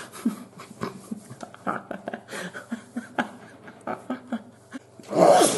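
A man sniffing and breathing in short, quick gasps, trying to bring on a sneeze that won't come. Near the end there is one louder breathy burst, but the sneeze does not follow.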